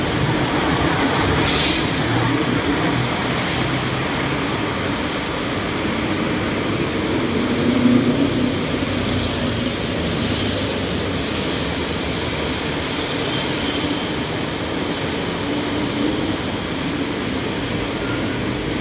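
A steady roar of road and rail traffic, swelling briefly about eight seconds in.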